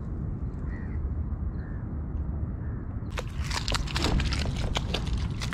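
Wind rumbling on the microphone. From about three seconds in, a burst of rapid splashing and crackling as a hooked fish thrashes in the shallows at the shore.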